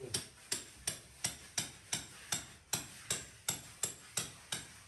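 A steady series of about thirteen sharp knocks, roughly three a second, each ringing briefly: rhythmic striking during ceiling-board installation.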